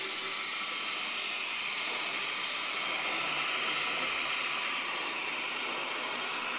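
Sound-equipped model of the CC 70002 diesel locomotive running along the track at a third of its speed setting: a steady hissy run of its two diesel engines from the decoder's small speaker, mixed with the motor and wheels on the rails.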